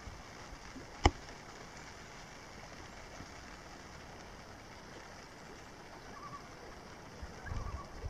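Steady hiss of wind and water at a lakeside camp, with one sharp click about a second in and faint, short wavering bird calls near the end.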